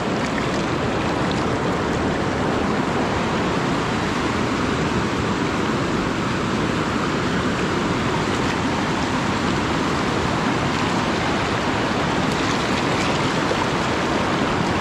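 River water rushing steadily, a continuous even noise with no breaks.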